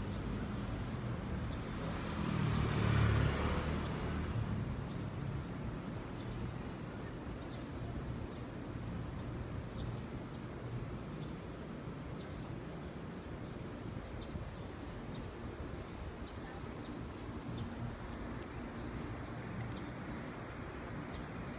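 A road vehicle passes by about two to four seconds in, its sound swelling and then fading, over steady street background noise.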